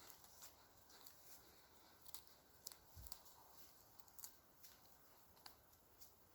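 Near silence, with a dozen or so faint, irregular clicks over a low hiss.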